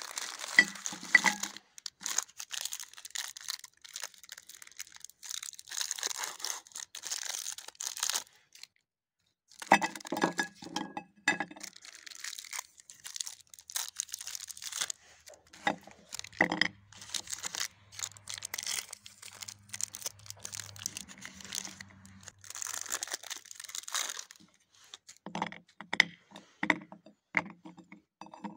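Plastic Snickers bar wrappers crinkling and tearing as the bars are unwrapped by hand, in bursts of a few seconds with short pauses between them.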